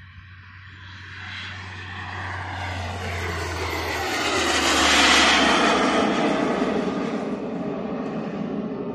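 Model Concorde jet flying past low, its engine noise swelling to a loud peak about five seconds in and then fading as it climbs away.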